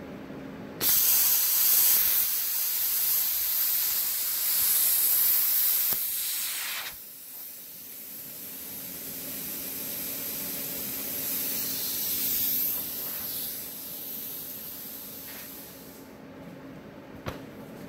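Everlast PowerPlasma 82i plasma cutter, fitted with Wish consumables and set at 20 amps, starts its arc suddenly about a second in and cuts thin sheet metal with a loud, steady hiss for about six seconds. After the arc stops, a quieter air hiss goes on for about nine seconds as air keeps flowing through the torch, then fades near the end.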